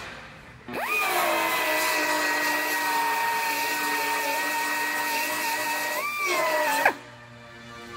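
High-speed power tool spinning up with a quick rising whine, running at a steady high pitch for about five seconds, then briefly rising again and winding down near the end. It is in use on the car's sheet metal while the rear body panel is being cut off.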